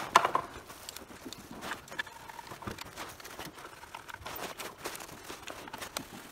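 Scattered small metal clicks and taps of hands fitting screws and handling a motorcycle's bolted engine side cover, with one sharper click just after the start.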